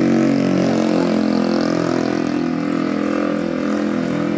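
A loud engine running steadily at an even pitch.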